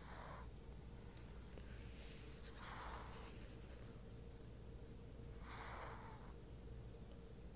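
A cat snoring: faint, hissy breaths about every three seconds, the middle one with a few crackles.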